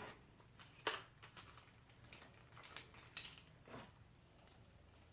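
Faint handling noises as parts of a photo light kit are wrapped and packed: a few small clicks and taps, the sharpest about a second in, with more scattered through the middle.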